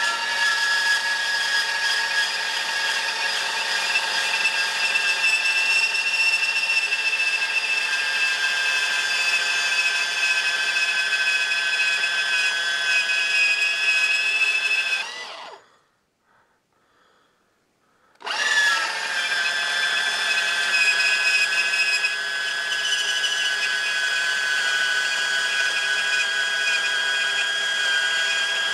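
Makita cordless portable bandsaw with a standard 18-teeth-per-inch blade cutting through 40 x 40 mm box section with a 2.5 mm wall, running with a steady whine. About halfway through it stops for two seconds, then starts up again and cuts on.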